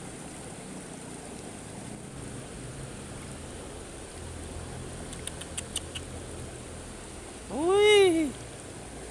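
Steady rush of the river flowing past the bank, with a few quick faint clicks a little past the middle. Near the end a man lets out a loud, drawn-out rising-and-falling exclamation as a fish comes up on the line.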